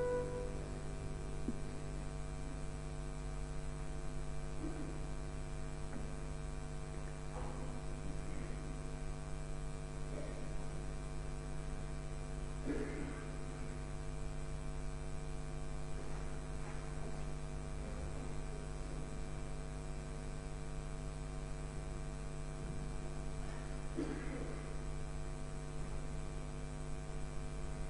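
Steady electrical mains hum, with a few faint, brief noises scattered through it.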